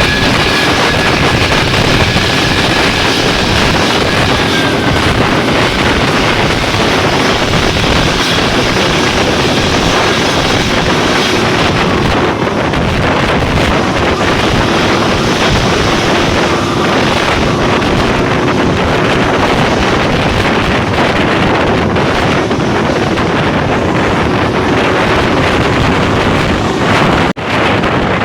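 Loud, steady wind buffeting the microphone of a moving vehicle, over road and engine noise, with a brief dropout near the end.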